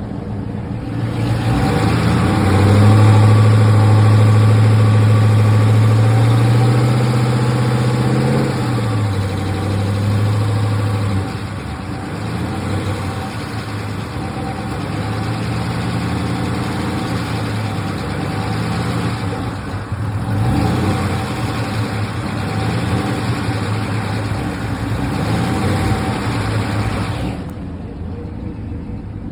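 GM LQ4 6.0-litre V8, fitted with a budget truck cam and Brian Tooley Racing lifters, revved and held at raised rpm for several seconds, then dropping back to idle with a few shorter blips of the throttle. The owner asks whether the valvetrain sound is lifter noise.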